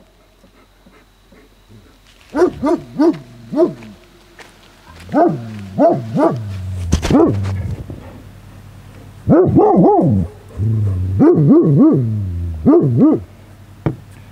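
German shepherd barking in short volleys of two to four deep barks, about six volleys with pauses of a second or two between them: alert barking at something the owner cannot see near camp.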